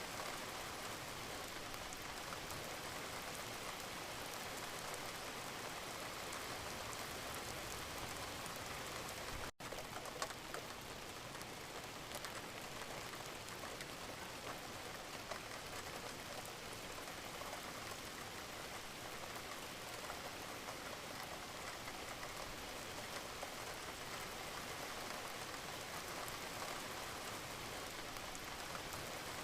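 Steady rain falling on a surface, an even hiss with scattered individual drop ticks. It cuts out for an instant about ten seconds in, then carries on.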